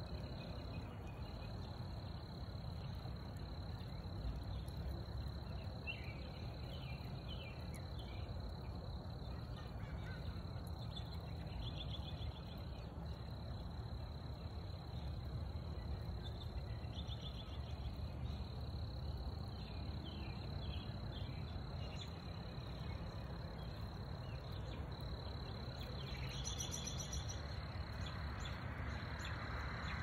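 Outdoor ambience: a steady low rumble, a thin steady high tone, and scattered short bird chirps now and then.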